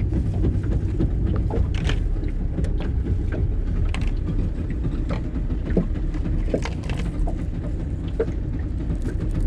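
Steady low rumble of a boat on the water, with scattered light knocks and clicks.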